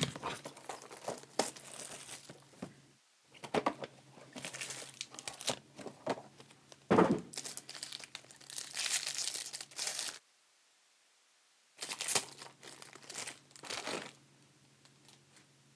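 Plastic card sleeves and wrapping crinkling and rustling as cards are handled, in irregular bursts, with a brief dead stop about two thirds of the way through.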